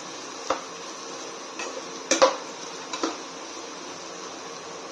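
A metal spoon stirs and scrapes gram-flour dumplings frying in oil in a nonstick kadai, knocking against the pan several times, loudest a little over two seconds in, over a steady low hiss.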